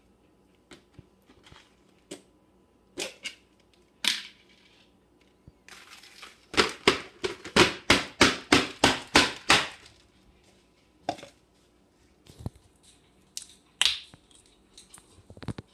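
A plastic tub knocked against a clear plastic container to shake out its thick white contents: a quick run of about a dozen knocks in some three seconds. Scattered plastic clicks and knocks come before and after it.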